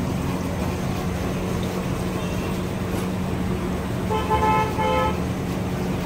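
A vehicle horn honks once for about a second, about four seconds in, over a steady background din with a low hum.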